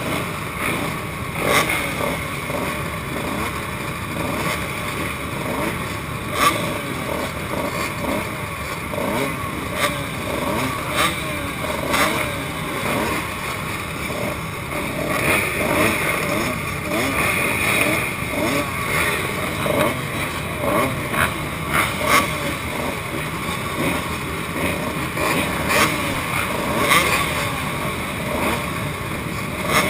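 Several motocross bikes idling together, with riders blipping their throttles now and then in short sharp revs; the nearest engine is a Kawasaki KX125 two-stroke.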